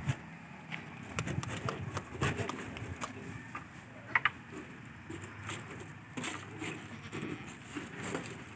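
Goat feeding at a trough of dry chopped stalks: scattered crackling and rustling as it noses through and chews the fodder. A brief high chirp about four seconds in.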